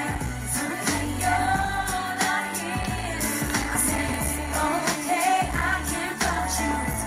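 Female pop vocal group singing live into microphones over pop music with held bass notes and drums.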